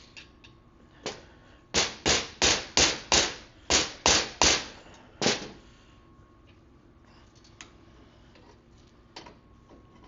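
Small hammer striking a vintage dirt bike footrest to knock a stuck part out: one light tap, then a quick run of about eight sharp metal strikes, roughly three a second, and a last strike shortly after.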